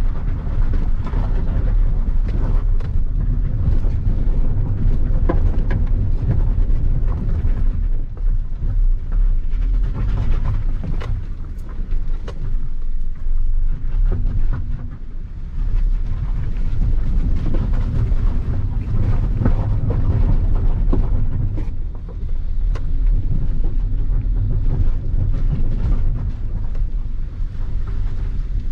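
Heard from inside the cabin, a Maruti Suzuki Ignis crawls in first gear over a rocky, broken road: a steady low rumble of engine and tyres, with frequent knocks and rattles as the car jolts over stones.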